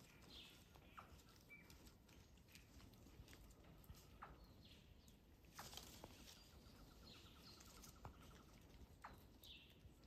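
Near silence: faint outdoor ambience with scattered soft snaps and rustles of leaves and twigs as a spider monkey feeds in the branches. A few short high falling chirps come through, with a brief rapid trill a little past the middle.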